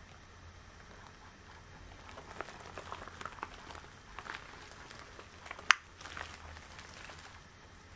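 Extra-long latex gloves handled close to the microphone: small irregular squeaks and crackles of rubbing latex start about two seconds in, and there is one sharp snap a little past halfway.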